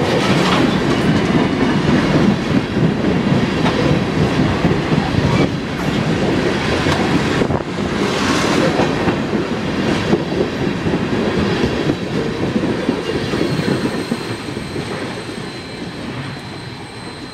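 Freight train of tank cars rolling past at speed, the steel wheels running on the rails in a loud, steady rush. The sound fades away in the last few seconds as the end of the train passes. A faint high ringing comes in near the end.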